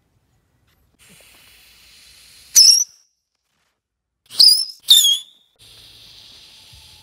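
Small firework rockets launching one after another from a toy launcher rack. Each starts with a hiss and leaves with a short, loud whistle that drops in pitch. There are three launches, about two and a half, four and a half and five seconds in, with more hissing near the end.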